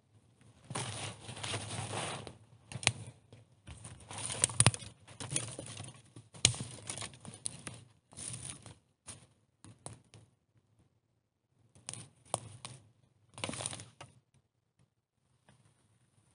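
Rustling and crunching footsteps on dry leaf litter and loose soil, in irregular bursts with a few sharp knocks.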